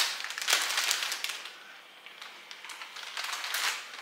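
Thin plastic shopping bag crinkling and rustling in irregular crackles as a small puppy paws and tugs at it, loudest in the first second or so.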